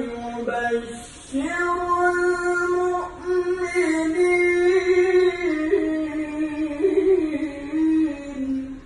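A male qari reciting the Quran in the melodic tilawah style, unaccompanied, holding long ornamented notes in a high voice. The recitation pauses briefly about a second in and the phrase ends near the end.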